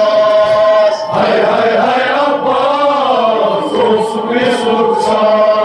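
Male chanting of a noha, a Shia mourning elegy: long held notes that waver slowly up and down in pitch, with a brief break about a second in.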